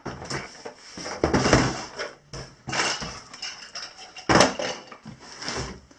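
An RC crawler truck being pulled out of its cardboard box and packaging: irregular rustling and scraping, with one sharp knock about four and a half seconds in.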